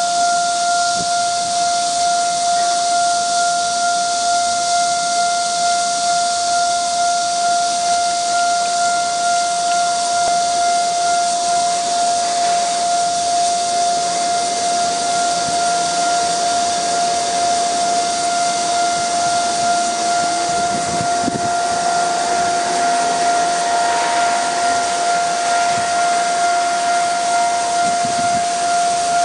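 Railway level-crossing warning bell sounding one steady electronic tone that pulses slightly and does not let up, over a steady high hiss. A few faint knocks come in the last third as the train's carriages pass.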